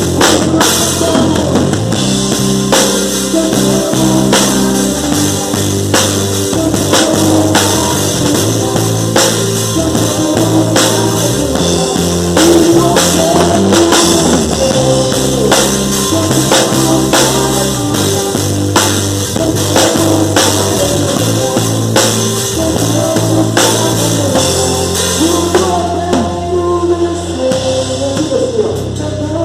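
Gospel band playing, with a drum kit keeping a steady beat under bass and other instruments, and some singing.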